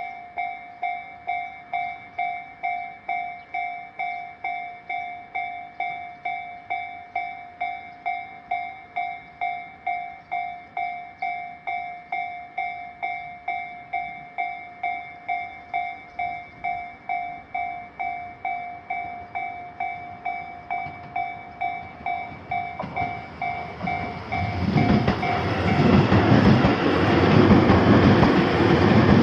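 Japanese railroad crossing's electronic warning bell dinging steadily about twice a second. Near the end a train passes through the crossing, its loud running noise drowning out the bell.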